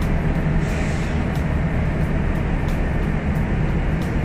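Steady low drone of running machinery, with a few faint ticks.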